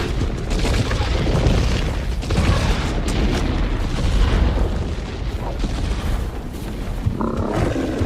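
Film sound effect of a dinosaur herd stampeding: a dense, continuous deep rumble of heavy overlapping footfalls. A brief higher-pitched call cuts through near the end.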